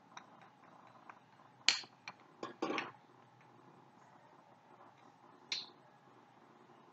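Short, light clicks and clinks of a spoon and a small dish against each other and the tiled floor: a quick run of them in the first three seconds, the sharpest about a second and a half in, and one more clink about five and a half seconds in.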